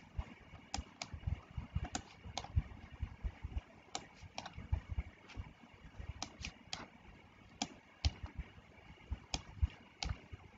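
Scattered clicks of a computer keyboard and mouse, irregular and a few each second.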